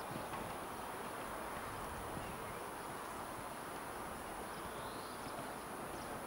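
Steady hiss of background noise with a few faint thuds.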